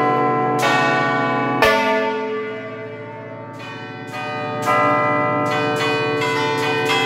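Church bells rung by hand, heard close up inside the belfry in a festive peal: quick strokes on several bells overlap, a heavy stroke comes about one and a half seconds in, the bells then ring out and die down for about two seconds, and the quick strokes start up again.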